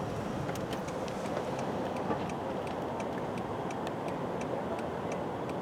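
Steady background rumble with a faint, regular ticking, about three ticks a second.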